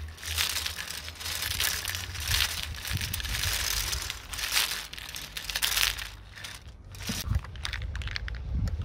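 Wire-cage nut gatherer (WOLF-Garten multi-star fruit collector with the small basket) being rolled over a lawn, its wires pushing through the grass and scooping walnuts into the cage, with a quieter stretch about six seconds in.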